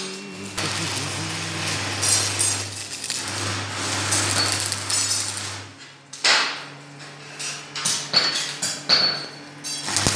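Stick-welding arc on a steel tube frame: a steady hiss over a low electrical hum for about the first half, then, after a short break, irregular crackling and spitting as the arc is struck again.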